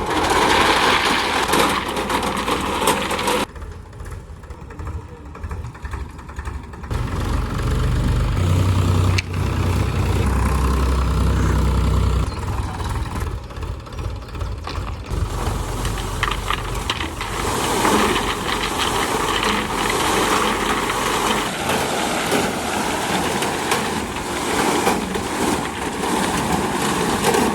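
A dump truck's diesel engine running and revving, then loose noise with many sharp clicks from about 15 seconds in, as a load of boulders is tipped out.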